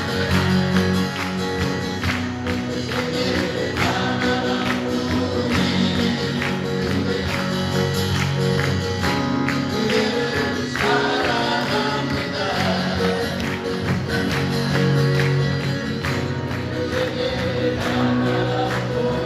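Male vocal group with acoustic guitars playing an upbeat song live, with a steady strummed beat and voices singing together.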